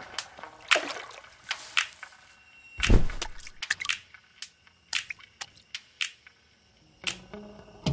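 Sharp, irregular clicks and knocks with drips and splashes of water: stones clacking together and dropping into shallow water at a pebbly shoreline. The loudest knock comes about three seconds in.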